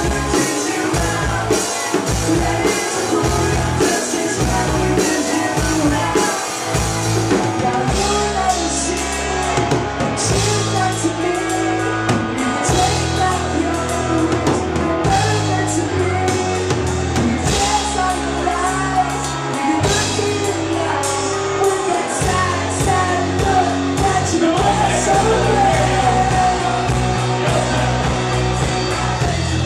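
Live band playing with a singer over drums and bass. About eight seconds in, the busy drumming thins out and long held bass notes take over beneath the vocal line.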